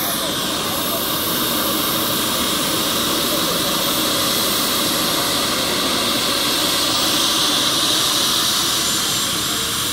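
Turbine helicopter running on the ground with its main rotor turning, ahead of lift-off: a steady turbine whine over a loud, even rushing of engine and rotor noise.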